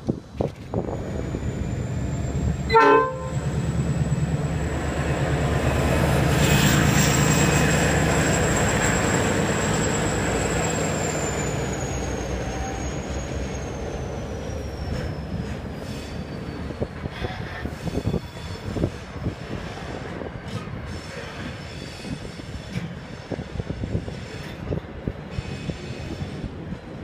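Pacific National 81 class diesel-electric locomotive 8102, with its EMD V12 two-stroke engine, pulling away with a loaded train: a brief horn toot about three seconds in, then the engine rumble builds as the locomotive passes close by and eases off, with a high whine that falls in pitch. Steel coil wagons then roll past, their wheels clicking over the rail joints.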